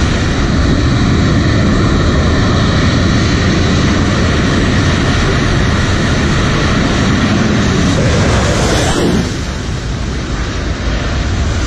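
Fighter jet engines at full power during a carrier catapult launch of an F/A-18: a loud, steady jet noise. About nine seconds in there is a quick sweep in pitch as the jet goes by, and the noise then drops.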